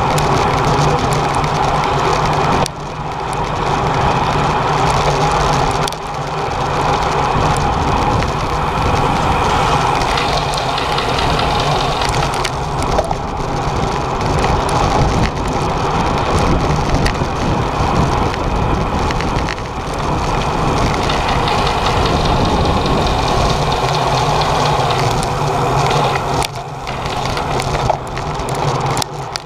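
Steady wind and road noise on a bicycle-mounted camera's microphone while riding at racing speed in a bunch of road bikes, dipping briefly a few times.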